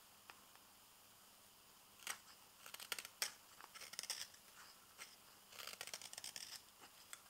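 Morakniv 106 carving knife slicing fresh maple in a series of short, crisp paring cuts, starting about two seconds in and coming in bunches of quick strokes.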